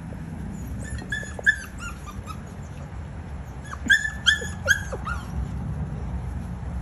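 Puppies yipping in play: short, high, falling cries in two quick runs, about a second in and again around four seconds.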